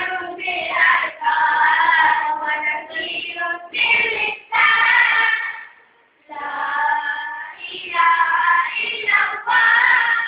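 A group of schoolboys singing a nasyid, a Malay Islamic devotional song, in phrases with brief pauses between them.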